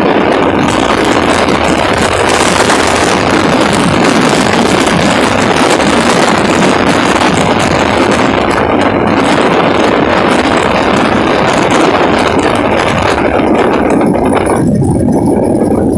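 Strong wind blowing, a loud steady rushing noise. Near the end it briefly turns duller, losing its hiss.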